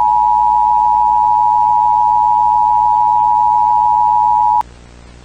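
Emergency Alert System attention tone: one loud, steady electronic tone that cuts off suddenly about four and a half seconds in, leaving a faint hiss and hum.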